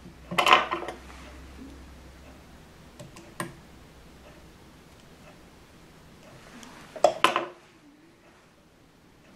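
Small metal fly-tying tools clinking and rattling: a short clattering burst near the start and another about seven seconds in, with two light clicks between.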